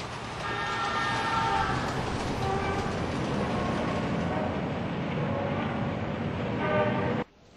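Steady rumble of a passing vehicle with a few brief high-pitched tones, cutting off suddenly near the end.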